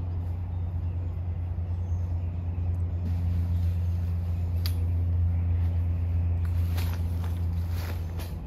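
Steady low hum throughout, with clicks, rattles and fabric rustles from the steel frame of an instant cabin tent being collapsed, a few seconds in and again near the end.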